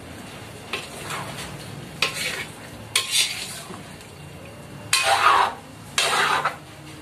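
Metal ladle stirring chunky pork menudo in a thin steel wok, scraping against the pan in about five separate strokes, the longest and loudest about five and six seconds in.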